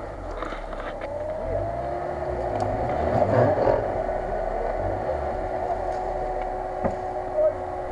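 Lada Niva 4x4's engine running under load as the vehicle crawls up a rutted dirt gully, with a steady whine over it. The engine gets louder about three seconds in. A single sharp click comes near the end.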